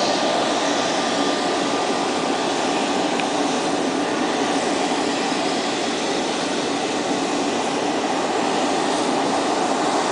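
Steady mechanical drone and rush with faint thin whining tones above it, unchanging throughout.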